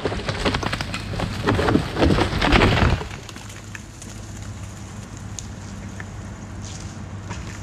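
A dead pine tree cracking and crashing down through branches for about three seconds, then the Bobcat E26 mini excavator's engine running steadily.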